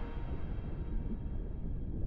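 A low, steady rumbling ambience, with a faint held music chord fading away.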